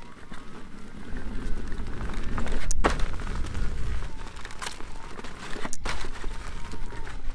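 Veteran Patton electric unicycle riding over a sandy gravel trail: its knobby off-road tyre crunches on the gravel under a steady rumble, with a faint hub-motor whine rising and falling in pitch. Two sharp knocks sound about three seconds apart.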